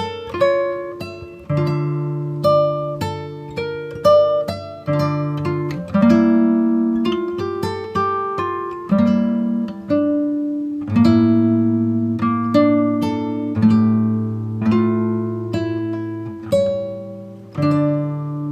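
Background music: acoustic guitar playing slow plucked melody notes over held bass notes.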